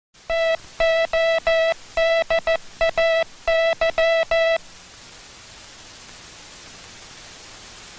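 Morse code sent as a steady tone, keyed on and off into short dits and longer dahs for about four seconds, then stopping, leaving a steady hiss.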